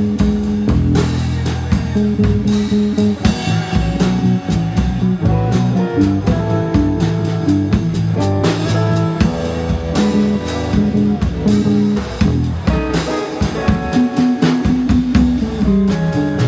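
Live blues band playing an instrumental passage: electric guitar lead over bass and a drum kit keeping a steady beat.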